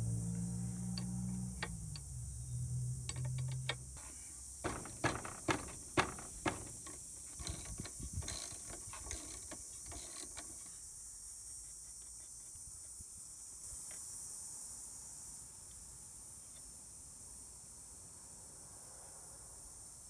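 Background music fades out over the first few seconds. Then a 3/8-drive ratchet with a 17 mm socket clicks in quick strokes for several seconds as the scooter's front axle nut is loosened, its other end held with a wrench. Only a faint steady high hiss is left after it stops.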